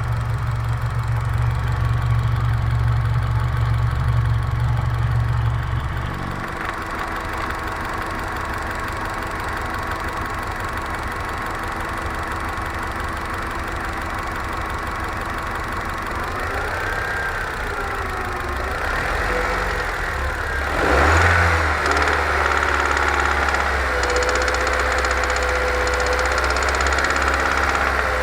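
Honda Civic's D15B 1.5-litre VTEC four-cylinder idling, revved up and down a couple of times about two-thirds through, then held at raised revs, with a knock from the engine. The owner says the knock comes only off-throttle or at about 1500–1600 rpm and vanishes when cylinder 1's injector is unplugged; the cause is unknown and the connecting-rod bearings are being checked.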